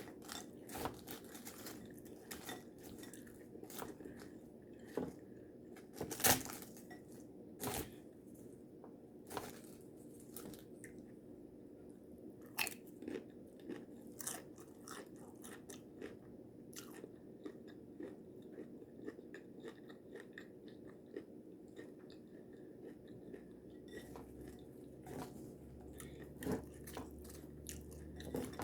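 A person chewing and crunching a taco salad with tortilla chips, close to the microphone: irregular crisp crunches between quieter chewing, the loudest about six seconds in.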